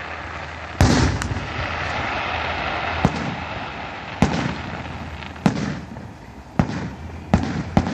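Aerial fireworks bursting: a string of sharp booms, roughly one a second, over a continuous hissing crackle.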